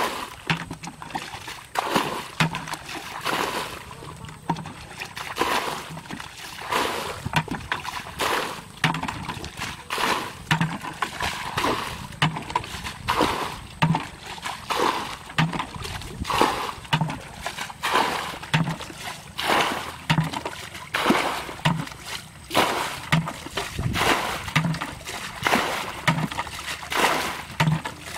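Water bailed out of a muddy ditch with a plastic bucket: rapid, repeated scoops and splashing pours, about one a second.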